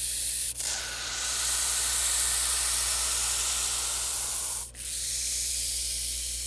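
Eastern hognose snake (black phase) hissing in a defensive bluff display: long breathy hisses, broken by two short pauses, one about half a second in and one just under five seconds in.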